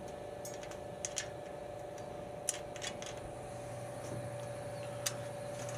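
A few small, sparse metallic clicks and taps as a bolt and steel hinge are handled against an aluminum pipe frame, over a steady low hum.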